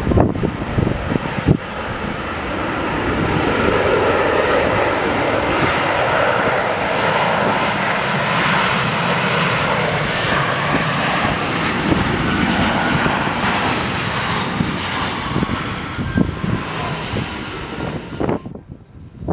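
Jet engines of a Boeing 737-800 airliner landing and passing close by: a broad roar that swells over the first few seconds and holds, with a slight glide in pitch. Gusty wind buffets the microphone at the start, and the sound cuts off abruptly near the end.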